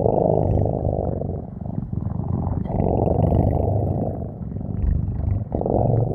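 Tiger growling and roaring, a low, rough sound in three long stretches with brief breaks about two seconds in and near the end.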